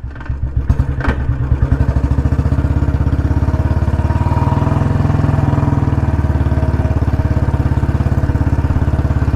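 Royal Enfield Bullet Electra 350's single-cylinder engine running with an even, rapid thump, a little stronger around the middle. There is a single sharp click about a second in.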